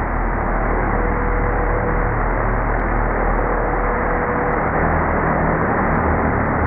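DJI Mini 2 quadcopter's propellers and motors, slowed down in slow motion into a steady, deep rushing drone. A faint steady tone runs under it for a few seconds in the middle.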